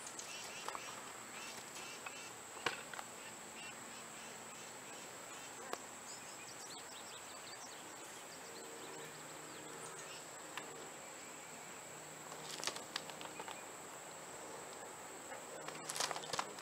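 Steady high-pitched drone of insects, with a few sharp clicks and a short cluster of crunching steps near the end as the horse's hooves shift on the gravel.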